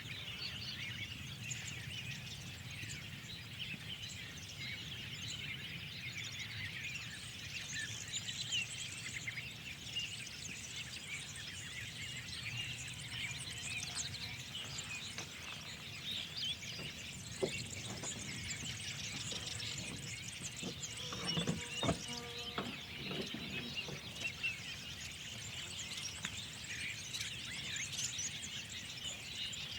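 A dense spring chorus of many small birds chirping and twittering continuously over a low steady background rumble, with a few sharper clicks and a lower call about two-thirds of the way through.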